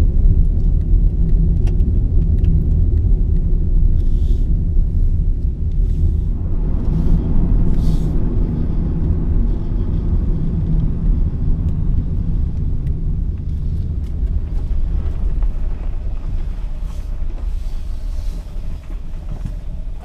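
Steady low tyre and road rumble inside the cabin of a moving Nissan Leaf electric car, with no engine note.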